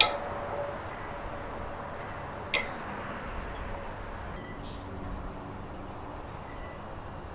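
Tiki Toss game's metal ring, swung on a string, clinking against the metal hook twice: once at the start and again about two and a half seconds in, each with a brief metallic ring.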